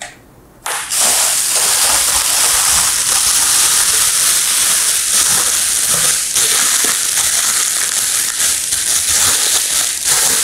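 Packaging crinkling and rustling as the speakers are unwrapped, a dense crackly noise that starts just under a second in and goes on without a break.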